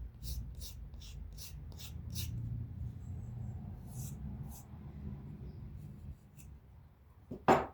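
X-Acto knife blade drawn in quick scraping strokes across a strop, about three strokes a second at first and then a few slower ones, to touch up a blade that has gone dull and cuts slowly. A louder single knock near the end.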